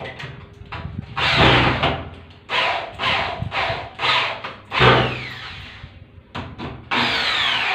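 Corded electric drill driving screws into a door lockset's mounting plate, run in several short trigger bursts. Some bursts wind down with a falling whine as the trigger is let go.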